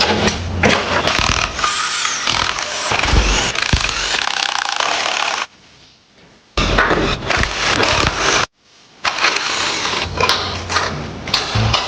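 Workshop tool and metal noise from dismantling a Land Cruiser chassis: hand tools and metal parts clanking and rattling. The noise breaks off twice briefly, about halfway through and again a few seconds later.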